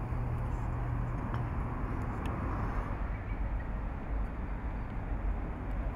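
Steady outdoor city background noise with a low rumble.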